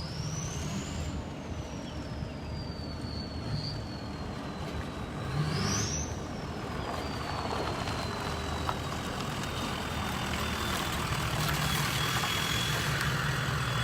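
Diesel pickup truck driving slowly, its engine running under a high whine that rises twice with the throttle and each time falls slowly back.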